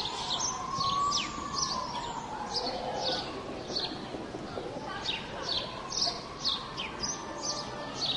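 Birds chirping, short falling notes repeated two or three times a second, over a faint, slow rising-and-falling wail like a distant siren.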